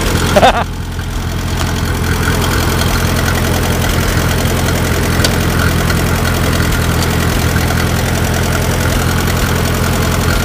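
International Harvester 350 Utility tractor's gasoline engine running steadily at idle. There is a short, loud pitched sound about half a second in.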